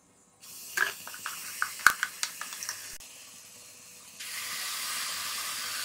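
A metal spoon clinks and scrapes against a steel mixer jar as thick wet coconut paste is scooped out into a hot pan. About four seconds in, a steady sizzle starts suddenly as the paste meets the hot, ghee-roasted gram flour.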